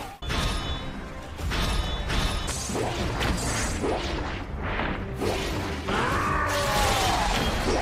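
Anime battle soundtrack: background music under mechanical whirring of the soldiers' vertical maneuvering gear, with crashes and impacts.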